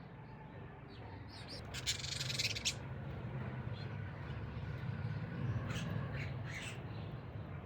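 Crow cawing: one harsh, drawn-out caw about two seconds in, then a few shorter calls near the end, over a steady low rumble.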